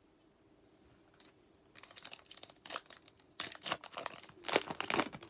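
A foil trading-card pack wrapper being torn open by hand, crinkling and ripping in irregular bursts that start about two seconds in and are loudest near the end.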